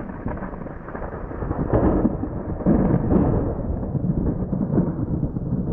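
Rolling thunder rumbling, swelling about two seconds in and easing off toward the end.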